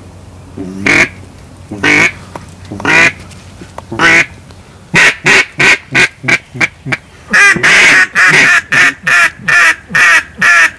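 Loud duck quacking: single quacks about a second apart, then quicker runs of quacks from about halfway through, densest near the end.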